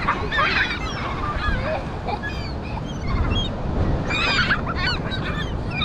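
A flock of seagulls calling over one another in many short, bending squawks, with a thick cluster of calls about four seconds in, over a steady low rumble.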